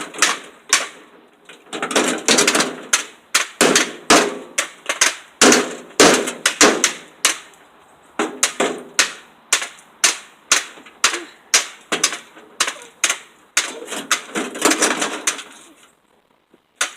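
Rapid, irregular knocking and tapping, several sharp strikes a second, as pieces of a broken microwave are struck and handled. The sound breaks off briefly near the end.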